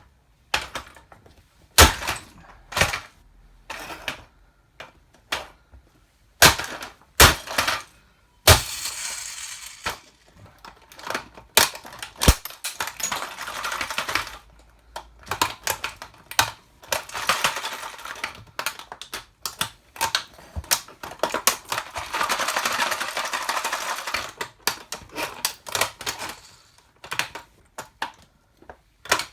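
A toy car being crushed under an 8-inch platform high heel: many sharp clicks and snaps, with several longer stretches of crackling and crunching as the heel grinds down on it.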